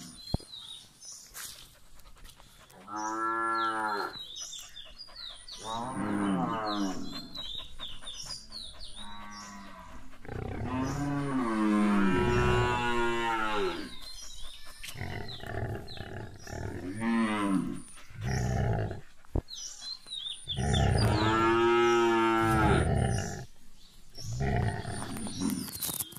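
Cattle mooing over and over: about seven calls, most lasting a second or so, two of them held for around three seconds.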